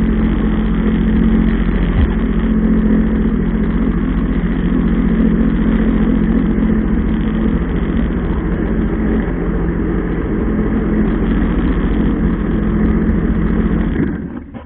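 Jet ski engine running steadily at speed, with a strong low hum. It drops away abruptly near the end.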